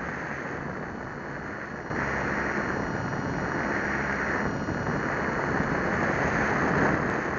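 Airflow and motor-and-propeller noise of an Old Fogey RC plane in flight, picked up by its onboard Syma X5C camera's microphone. A steady rushing noise that gets louder about two seconds in.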